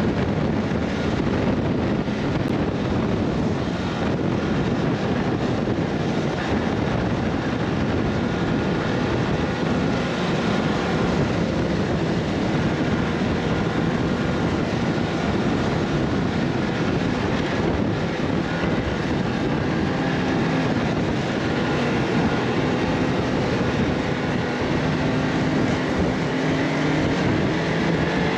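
A motor vehicle running at a steady pace: a continuous rush of noise with a low engine drone underneath, its pitch wavering slightly.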